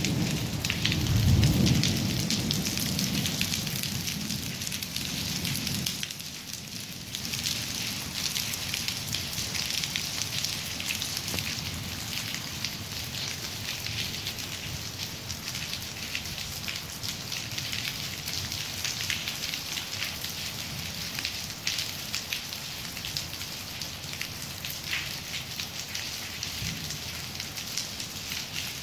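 A low rumble of thunder, loudest about a second and a half in and dying away by about six seconds, over steady rain falling throughout.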